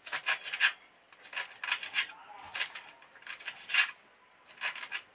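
Kitchen knife finely chopping fresh coriander leaves directly on a stone worktop: quick runs of crisp chopping strokes with short pauses between them.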